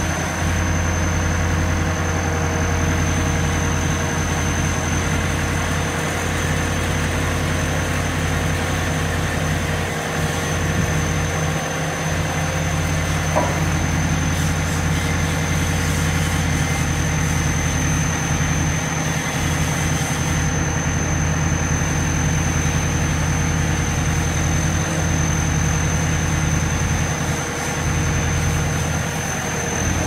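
ABG Titan 111 asphalt paver's diesel engine running steadily, a deep even hum with a thin high whine above it.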